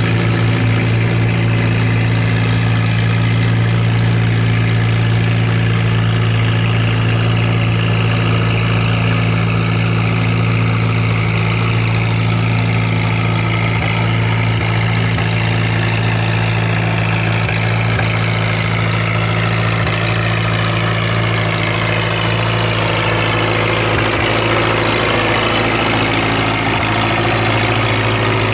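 Antique tractor engine idling steadily and loud. A second engine's higher pitch slowly shifts up and down in the second half.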